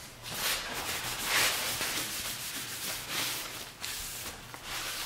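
Paper towel rubbing wood stain into a rift-cut white oak beam, swishing in repeated strokes about once a second.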